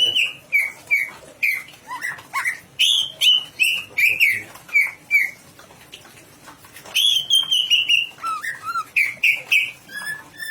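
Green leafbird (cucak ijo) singing a run of loud, clear whistled notes, many sliding down in pitch. It breaks off for about a second and a half in the middle and then starts again. The title calls the bird gacor, in full song and ready for competition.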